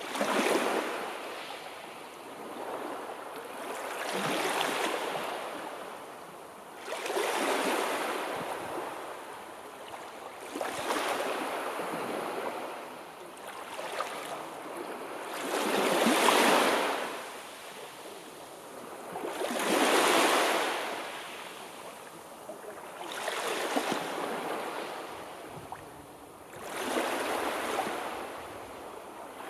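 Sea surf: waves rush in and wash back in repeated surges, about one every three to four seconds.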